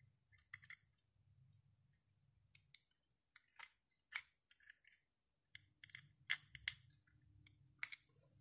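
Scattered light clicks and sharp taps from handling the cut-open plastic case of a motorcycle battery and touching a test lead to its exposed lead cells, the sharpest few coming in the second half over a faint low hum.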